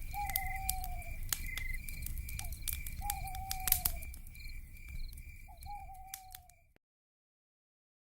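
Night-time animal calls: a steady high trill, short repeated chirps, and three falling whistled calls about a second long each, over a low rumble and scattered clicks. The sound cuts off abruptly near the end.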